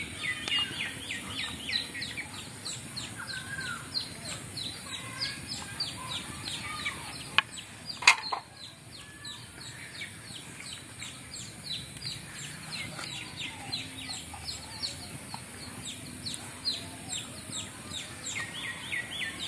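Chicks peeping over and over, several short falling chirps a second. A single sharp knock sounds about eight seconds in.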